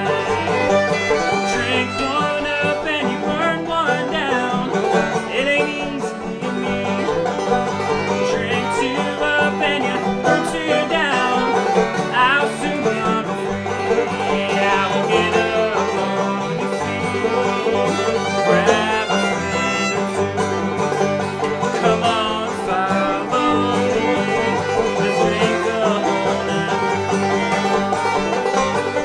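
Bluegrass string band playing an instrumental passage with no singing: clawhammer banjo, fiddle with sliding notes, and acoustic guitars strumming along at a steady level.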